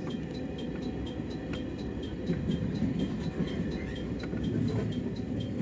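Electric commuter train running along the line, heard from inside the passenger car: a steady rumble of wheels on the rails.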